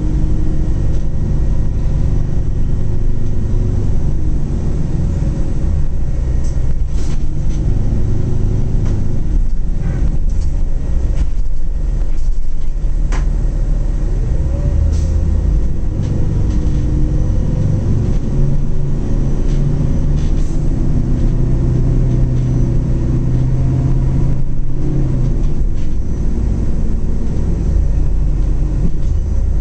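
Interior cabin sound of a Zhong Tong LCK6107H coach on the move: a steady engine and road rumble whose note rises and falls as the bus speeds up and slows. A few short clicks and rattles come from the cabin.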